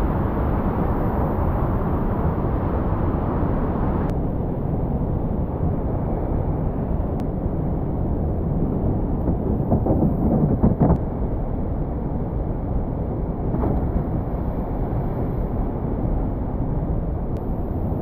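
Rushing whitewater of a mountain creek and waterfall, a steady noise; a few brief knocks about ten seconds in.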